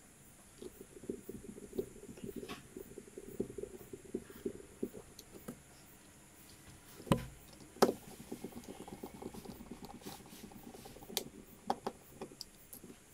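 Small handling noises of a precision screwdriver and tiny screws: soft irregular rattling and scraping, with two sharper clicks a little less than a second apart about halfway through and scattered ticks near the end.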